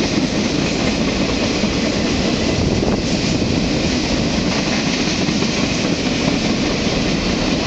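CP and CN trains running past on either side of the platform: a steady, loud rail din that holds even throughout.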